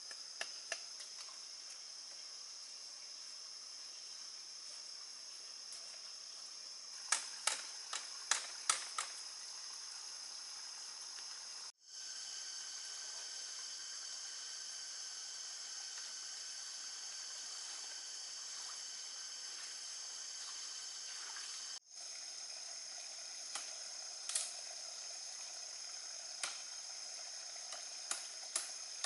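A steady, high-pitched insect chorus drones on. A quick run of five sharp taps comes about seven seconds in, and a few single taps follow later. The sound drops out briefly twice.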